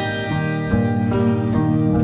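Background music: instrumental with plucked, guitar-like notes.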